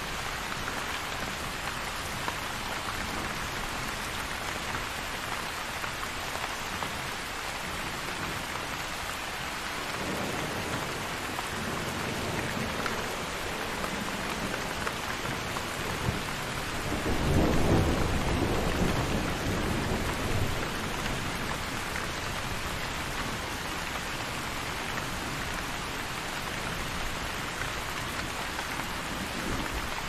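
Steady rain with a roll of thunder: a low rumble builds about a third of the way in, swells to its loudest a little past halfway, then dies away a few seconds later, leaving the rain.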